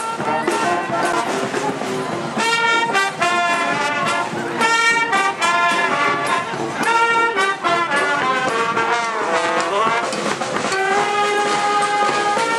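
Street brass band playing loud held chords and short punched phrases on trumpets and trombones, with a downward smear in pitch about nine seconds in and a long held chord near the end.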